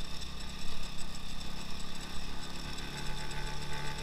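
Engine of a two-wheel-drive off-road motorcycle running steadily as the bike rides along.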